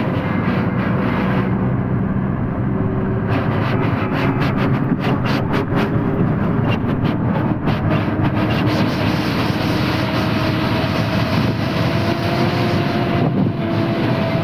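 Loaded heavy truck on the move: a steady engine drone that rises slowly in pitch, under rattling from the body and load.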